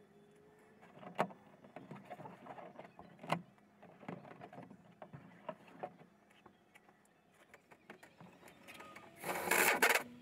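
Sheet-metal ductwork being worked: scattered knocks and taps on the metal, then near the end a cordless drill runs for just under a second, driving a screw into the sheet-metal transition. This drill burst is the loudest sound.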